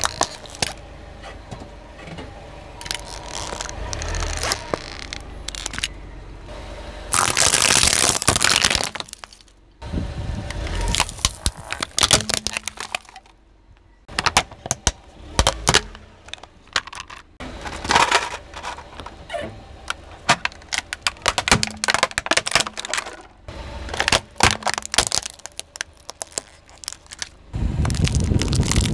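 Car tyre rolling slowly over plastic toys on asphalt and crushing them: many sharp cracks and snaps of breaking plastic. About seven seconds in there is a longer, louder stretch of crunching, and near the end a low rumble as the tyre rolls on.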